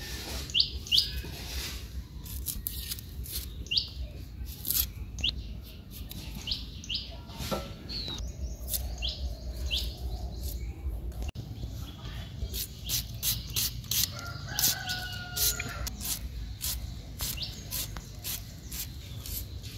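Onions being cut with a blade, a run of short crisp cuts. Small birds chirp throughout, and a rooster crows about fourteen seconds in.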